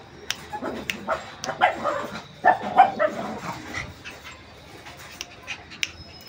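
Shih Tzu puppies giving short, high yips and whimpers, clustered in the first half, with sharp clicks scattered throughout.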